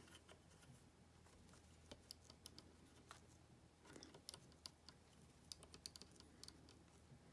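Faint, scattered small clicks and taps as metal alligator clips are handled and pushed onto the ends of a helping-hands stand's flexible arms, coming in irregular clusters from about two seconds in.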